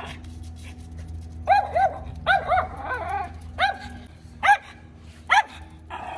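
Miniature schnauzer barking in short, high-pitched barks, about eight of them, some in quick pairs, starting about a second and a half in. This is reactive barking at another dog, from a fear-aggressive dog.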